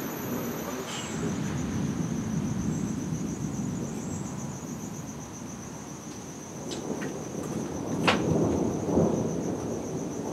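Thunder rumbling low and continuously, swelling in the last few seconds, with one sharp click about eight seconds in. Insects trill steadily and high underneath.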